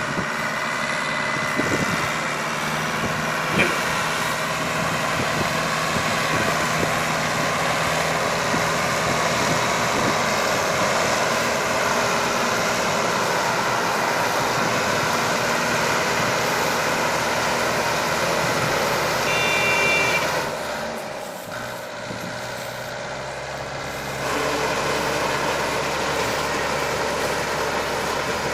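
Mini hay baler and the engine driving it, running steadily while baling wheat straw. It goes quieter for about three seconds about three-quarters of the way through, then picks up again.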